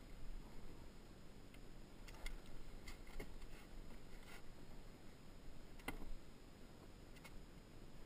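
Faint, scattered clicks and light taps inside a small plastic fishing boat, about seven in eight seconds, from a just-landed bass and fishing gear moving on the hull floor.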